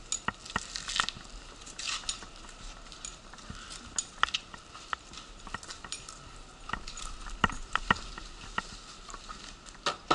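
A wheelchair rolling along a concrete station platform with footsteps alongside: irregular clicks, taps and rattles, a few of them sharp and loud.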